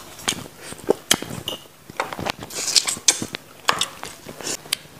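Close-miked mukbang eating: lips smacking, sucking and chewing on pieces of patin fish eaten by hand, heard as a scatter of wet clicks and short sucking hisses.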